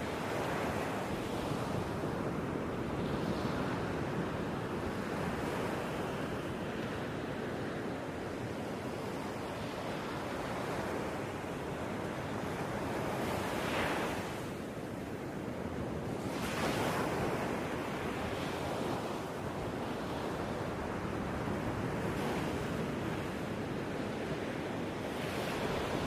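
A steady rushing noise like surf washing in, swelling and easing a few times.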